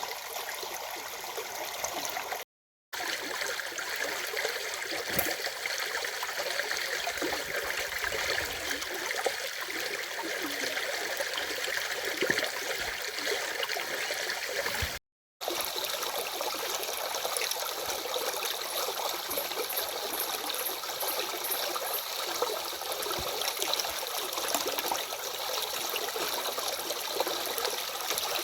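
A stream's running water, a steady rushing and gurgling with small splashes. It cuts out to silence twice, each time for a fraction of a second.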